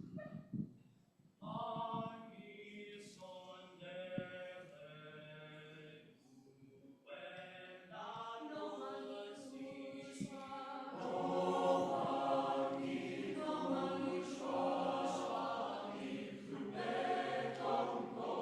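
A cappella choir singing a South African choral song in an Nguni language: a solo voice sings short opening phrases, then the full choir joins about seven seconds in and grows louder near the middle.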